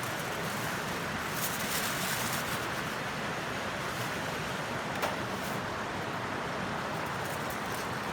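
Wood fire burning, with scattered small crackles and one sharper pop about five seconds in, over a steady rushing background noise.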